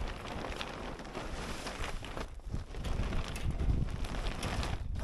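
Wind buffeting the microphone, a low rumbling noise that swells and fades, with scattered light rustles and knocks.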